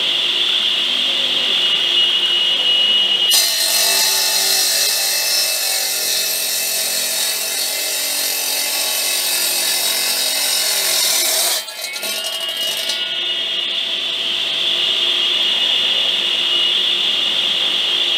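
Steinschneider 350 wet stone saw, an electric saw with a water-cooled diamond blade, running with a steady high whine. About 3 seconds in, the blade starts cutting a concrete paving stone and a harsh grinding hiss takes over. Near 12 seconds the cut finishes and the blade goes back to free-running whine.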